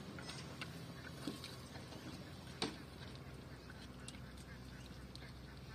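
Metal ladle clinking and scraping in a steel cooking pot as meat and broth are scooped out and served, with a sharper clink about two and a half seconds in. Short animal calls, like quacking, come in among the clinks.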